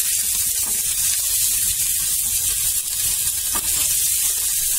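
Chicken wings sizzling steadily in a little hot oil in a non-stick frying pan as they are turned with a wooden spatula and lightly browned on all sides.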